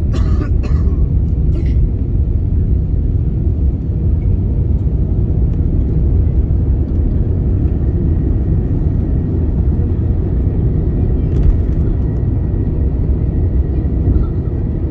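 Steady low rumble of airliner cabin noise, jet engines and airflow heard from inside the cabin on the approach to landing. A few brief clicks near the start and again past the middle.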